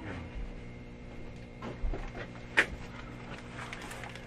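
Footsteps and a few knocks from a cardboard honor box of candy being carried and handled, over a low steady hum. The sharpest knock comes about two and a half seconds in.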